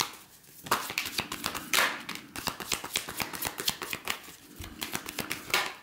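A deck of Romance Angels oracle cards being shuffled by hand: a quick run of papery card flicks and slaps, with a few louder slaps among them.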